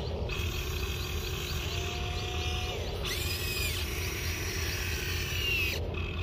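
Radio-controlled excavator working, its electric motors whining and rising and falling in pitch as the arm moves, over a steady low rumble.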